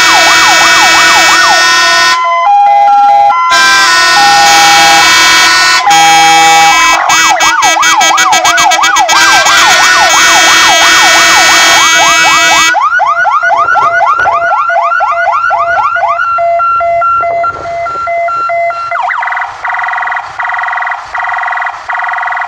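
Sirens of two fire engines sounding together, switching between fast up-and-down yelping sweeps and bursts of steady horn tones. About thirteen seconds in, one set stops and the other carries on alone more quietly, with rising sweeps and then a steady tone pattern.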